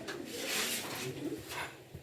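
Handling noises from taking a washing machine apart: a scraping rustle about half a second in, then a short click.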